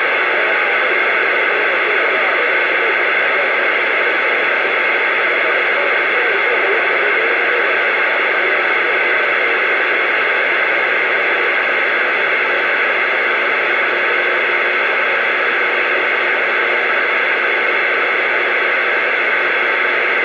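CB radio receiver hissing with steady static between transmissions, the squelch open on a quiet channel.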